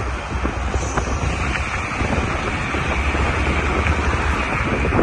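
Steady road noise of a moving car, with wind blowing on the microphone.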